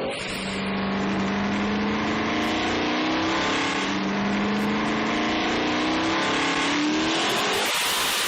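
Turbocharged 6-litre car engine on a chassis dynamometer making a full-throttle power pull. Its pitch climbs in several stretches and drops off near the end.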